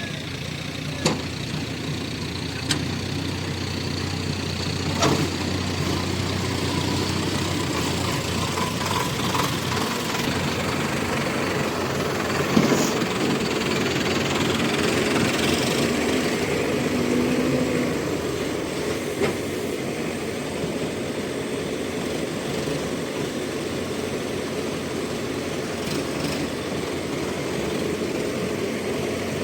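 Diesel engines of a Hyundai 140 excavator and farm tractors running steadily during mud loading, with a few sharp knocks scattered through.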